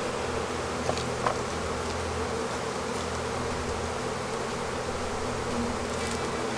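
Honeybees buzzing as a steady, dense hum around an opened hive, with masses of bees boiling out over the boxes. Two light clicks about a second in.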